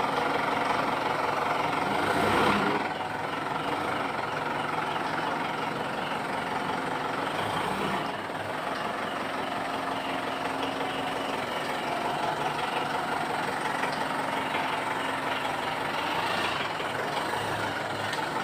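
Mitsubishi Pajero engine idling steadily, with a brief louder rush about two seconds in. The propeller shaft's universal joint has just been greased to cure a mouse-like squeak on engaging gear, and the idle is being listened to for that squeak.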